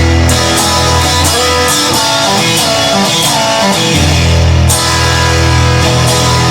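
Instrumental rock music led by electric guitar, with a regular beat and no singing.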